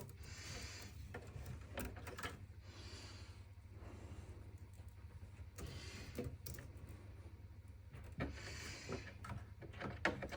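Faint handling of PC power cables and plastic connectors: soft rustles and scattered small clicks as a split 4-pin CPU power plug is fitted, over a steady low hum.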